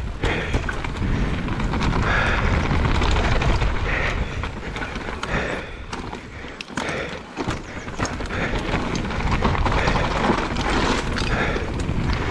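Mountain bike riding fast down a dirt trail, heard from the bike or rider: wind buffeting the microphone in a heavy rumble, with tyre noise and the bike rattling and clicking over bumps.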